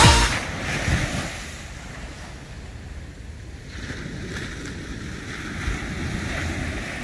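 Ocean surf breaking and washing up a sandy beach, with wind buffeting the microphone; the wash grows louder about halfway through. A music track cuts off right at the start.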